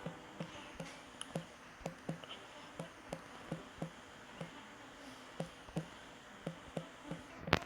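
A quick, fairly regular run of light taps or clicks, about two or three a second, with one sharper, louder click near the end.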